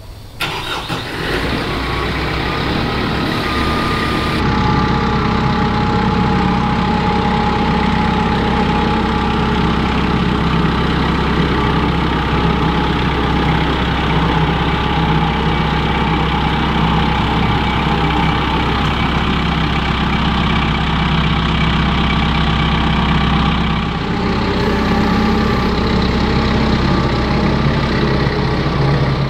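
Engine running steadily at a constant speed, with a slight change in its sound about three-quarters of the way through.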